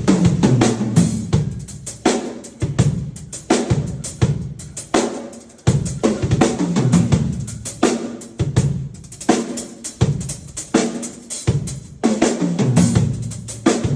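Drum kit being played: bass drum, snare and cymbal hits in a busy, repeating pattern.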